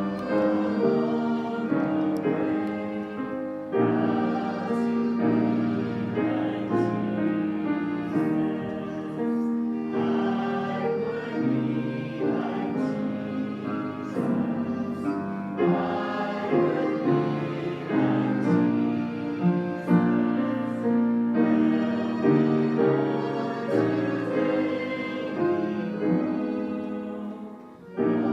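Congregation singing a hymn with piano accompaniment, phrase after phrase, with a short lull near the end before the next line begins.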